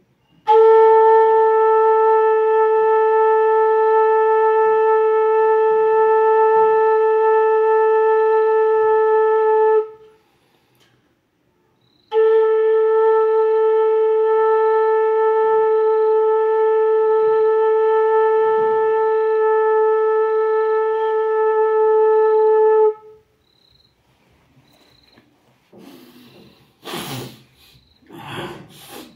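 Flute holding one long, steady note, played twice for about ten seconds each, with a short pause between: long-tone practice on a single sargam note. Near the end come a few short, breathy puffs with no pitch.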